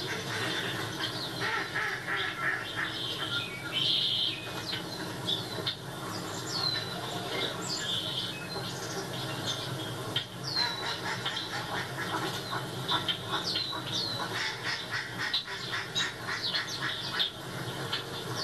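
Wild birds at a feeder calling and chirping on a television's sound track: many short chirps, each dropping sharply in pitch, scattered throughout with no steady rhythm.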